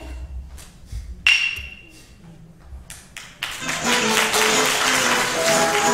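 Two sharp, ringing clacks about two seconds apart, with a few fainter taps between them. Then, about three and a half seconds in, shamisen music with percussion starts up.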